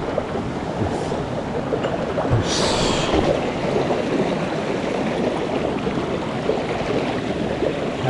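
Shallow mountain stream running over rocks, a steady rush of water close to the microphone, with a brief hiss about two and a half seconds in.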